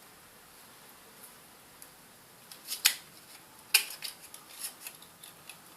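Sharp clicks and light taps of small parts being handled during laptop cooler reassembly: two loud clicks about a second apart near the middle, then a string of lighter ones.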